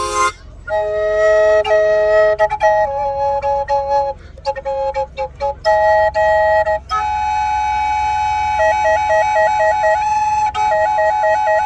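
Native American drone flute playing slow held notes, often two sounding together, with short breaks between phrases. From about seven seconds in, one steady drone note holds under the melody line, which trills quickly between two notes in two short runs near the end.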